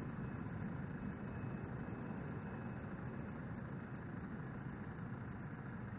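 Distant rumble of a CRJ-200 regional jet's twin General Electric CF34 turbofans as it climbs away after takeoff, steady and slowly fading.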